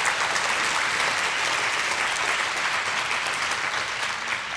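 Audience applauding a guest who has just been introduced; steady clapping that tails off near the end.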